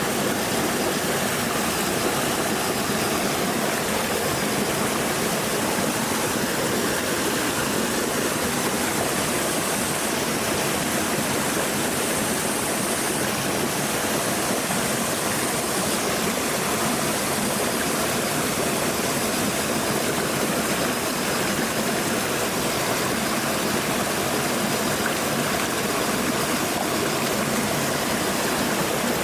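Stream water flowing with a steady, even rushing.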